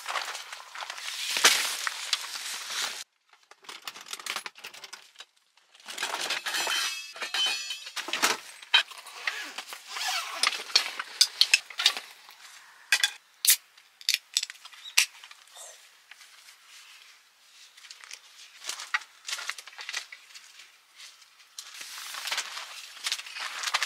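Handling noise from assembling a wooden clothes rack: fabric rustling, a quick run of fine ticks, then a string of sharp clicks and clinks as plastic hangers and wooden poles are knocked together, with softer rustling near the end.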